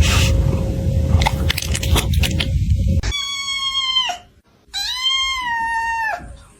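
A low rumbling noise with scattered clicks, then, after an abrupt cut about halfway through, a cat giving two long meows, each about a second long, steady in pitch and dropping at the end.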